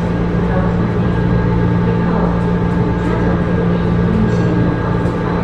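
MRT (metro) train running: a steady low drone with several held tones that does not change in level.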